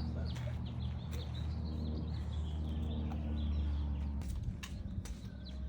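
Small birds chirping in short repeated calls over a steady low hum, with a few sharp clicks about four to five seconds in.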